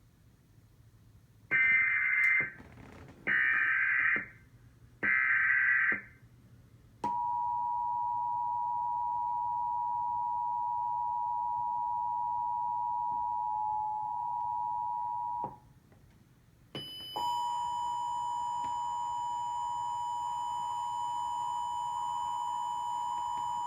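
Emergency Alert System test: three short screeching SAME data bursts, then the EAS two-tone attention signal (853 and 960 Hz together) held steady for about eight seconds. After a short gap, a second steady, buzzier tone starts and carries on to the end.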